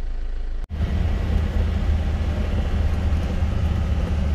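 Isuzu Elf campervan's diesel engine running under way, with road noise, heard from inside the cab. A brief break a little under a second in; after it the low engine rumble is louder.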